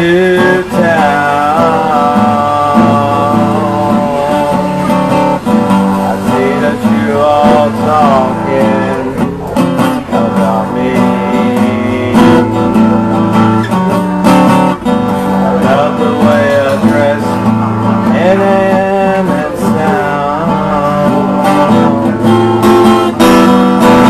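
Acoustic guitar strummed as accompaniment while a man sings a slow song.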